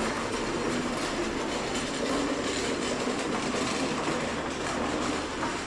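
Steady, even rumble and hiss of the ambient noise in an underground shopping arcade.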